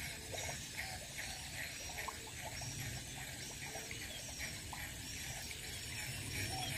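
Faint outdoor ambience of small wild animal calls: short, high chirps repeating about once a second, with scattered softer chirps, over a low steady hiss.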